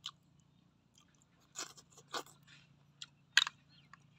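Close-up eating sounds of a man sucking snail meat out of the shell and chewing it: a few short, sharp smacks, the loudest about three and a half seconds in.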